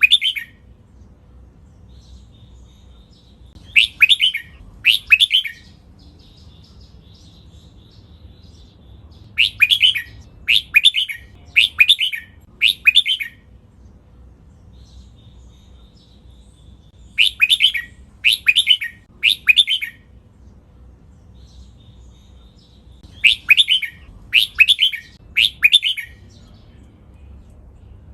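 Red-whiskered bulbul singing: loud, sharp phrases of two to four clear notes, repeated in bursts every few seconds with short pauses between.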